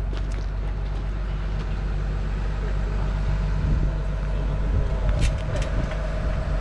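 Diesel engine of a 22-ton JCB JS220 excavator idling steadily, with a steady whine joining about halfway through and a few light clicks about five seconds in.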